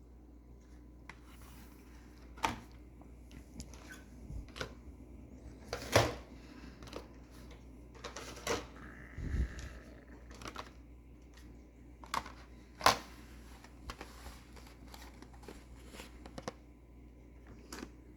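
Hands handling packaged Hot Wheels diecast cars: scattered clicks and taps of plastic and card packaging, with a few sharper clicks and one dull thump.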